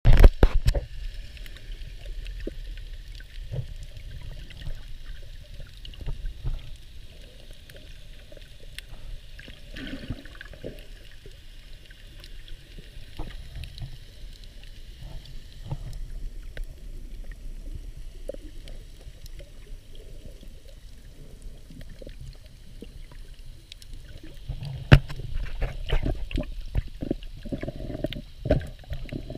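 Underwater sound heard through a camera's waterproof housing: a muffled low rumble of moving water with scattered faint clicks. A loud splashing burst comes in the first second, and the water movement grows busier and louder near the end.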